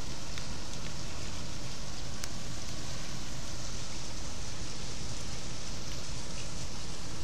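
Steady rushing noise of harbour water and wind, with a low rumble underneath and a faint click about two seconds in.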